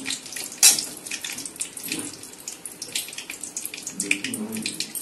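Bay leaves sizzling in hot oil in a metal kadai: a steady crackle of many small pops, with one louder burst less than a second in, the sound of a bay-leaf tempering (phoron) frying.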